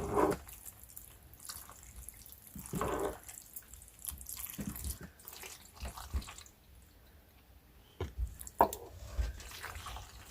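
Spoon stirring pasta, ground beef and queso cheese dip together in cast iron cookware: irregular wet stirring sounds and scrapes.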